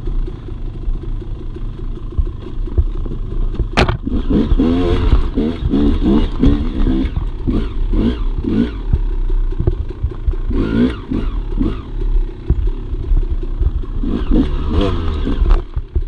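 Dirt bike engine revving up and down repeatedly while riding, with clatter and a sharp knock about four seconds in.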